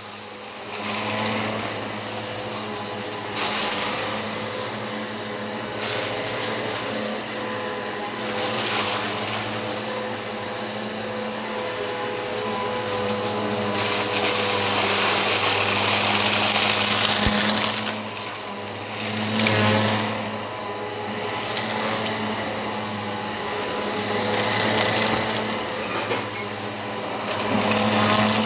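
Eureka PowerSpeed upright vacuum cleaner running steadily with a motor hum, with repeated surges of loud hiss as it sucks up rock salt and lentils. The longest surge lasts a few seconds around the middle.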